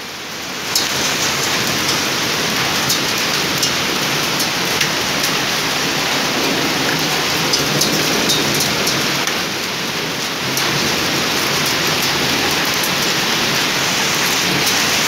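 Severe hailstorm: hail and rain pelting down in a dense, steady hiss, with scattered sharp clicks of hailstones striking hard surfaces.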